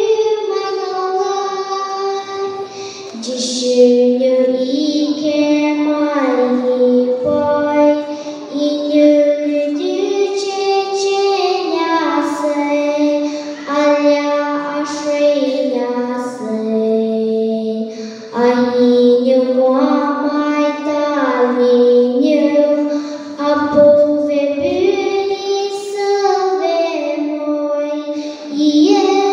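A young girl singing a solo through a microphone, holding long notes that slide from one pitch to the next, with short breaths between phrases.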